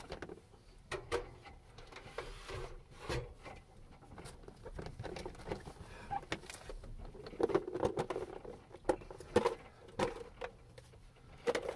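Rummaging in a clear plastic storage box: scattered knocks, clicks and rustles of plastic containers being handled. The sounds get busier in the second half, with several sharp clicks as the box's snap-on lid is taken off.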